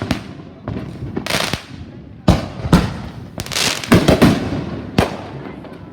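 Fireworks going off in an irregular string of sharp bangs, each trailing off with a short echo, coming thickest in a quick cluster around the middle.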